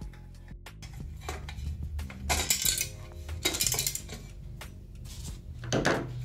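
Several short clinks and clattering knocks as a CRT monitor tube in its bezel frame is handled and shifted on a workbench.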